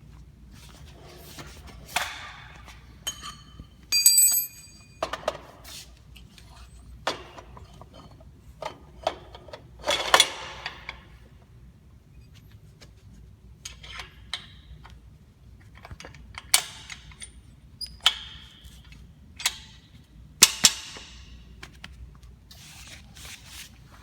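Steel caster mounts and locking keys knocking and clinking against the cart's steel base as the wheels are slid in and locked. About a dozen separate metal knocks, some ringing briefly, the clearest ring about four seconds in.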